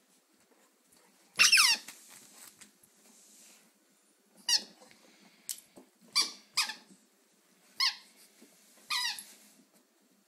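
A squeaky dog toy squeaking about seven times as a dog bites it. The first squeak is the loudest and falls in pitch; the rest come in short separate squeaks.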